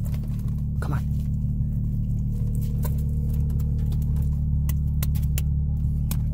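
Car engine idling, a steady low hum heard inside the cabin, with scattered light clicks and taps over it.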